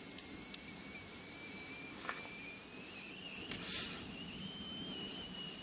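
Pressure pot on a wood fire whistling with a thin steady tone that slowly rises in pitch as steam escapes under pressure. The fire gives a few sharp pops and a short hiss a little past halfway.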